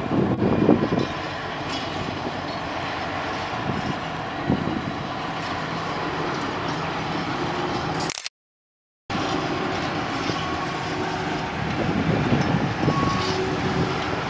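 LDH45 450 hp diesel-hydraulic shunting locomotive running as it hauls a rake of gondola freight wagons slowly along the track, a steady rumble of engine and rolling wagons, with a few brief high squeals in the second half. The sound cuts out completely for about a second just past the middle.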